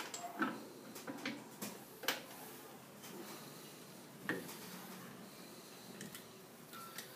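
Light metallic clicks and knocks of a dial indicator and its holder being positioned against a chrome bar in a lathe's four-jaw chuck, to dial the bar in to run true. Three sharper knocks stand out, about half a second, two seconds and four seconds in.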